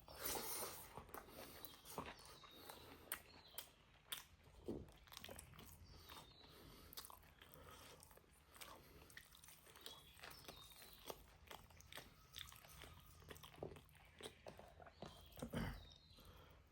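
Quiet close-up chewing and biting: irregular wet mouth clicks and smacks of someone eating pork and rice, with a slightly louder bite about three-quarters of the way through.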